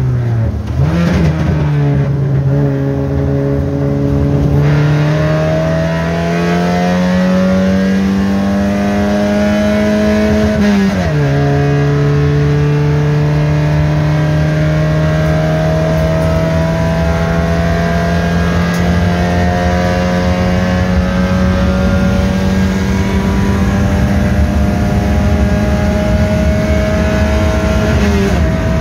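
Opel Kadett GSI 2.0 four-cylinder engine, built for the track with a 4-into-1 header and no air filter, heard from inside the stripped cabin as the car is driven hard on the circuit. The engine note climbs steadily under throttle and drops sharply at gear changes about a second in, about eleven seconds in and near the end.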